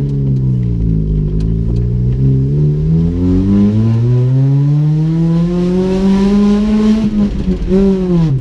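Nissan Micra engine pulling the car away. The revs dip about a second in, then climb steadily for several seconds before dropping sharply near the end.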